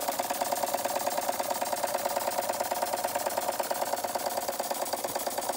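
Antique Bing Vesuv toy steam engine running fast and steady, its cylinder and flywheel making a rapid, even mechanical beat.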